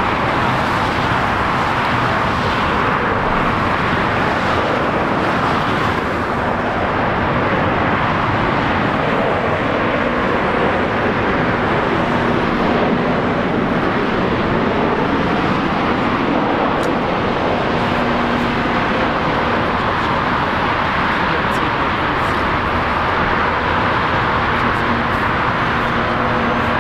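Steady jet engine noise from an Embraer E195LR's two turbofans as the airliner flies its landing approach, an even, unbroken noise.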